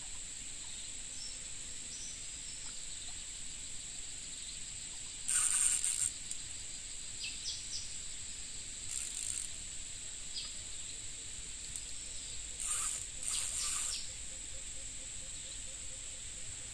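Insects buzzing steadily at a high pitch, with faint bird chirps. A few short hissy scratching noises cut in, the loudest about five seconds in.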